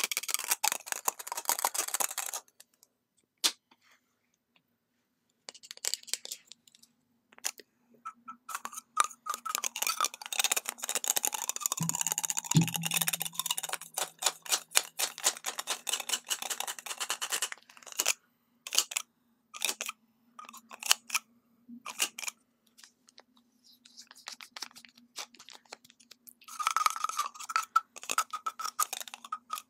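Long fingernails tapping, clicking and scratching on lipstick tubes and caps, in bursts with short pauses. One heavier thump about twelve seconds in.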